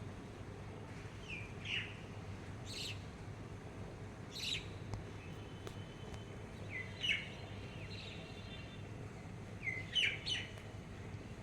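A bird calling in short, sharp chirps, about six over several seconds, two of them close together near the end, over a steady low background hum.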